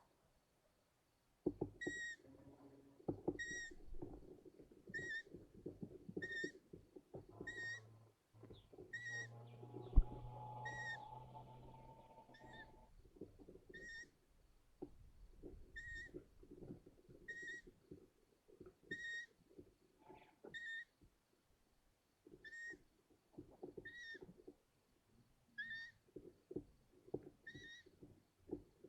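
Long-eared owl chick giving its high, thin begging call over and over, a little less than once a second, over scratching and rustling from movement in the nest. A single sharp knock comes about ten seconds in.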